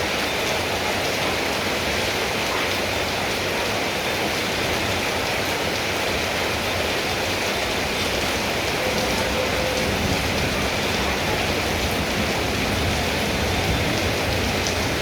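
Steady heavy rain falling and pattering on surfaces.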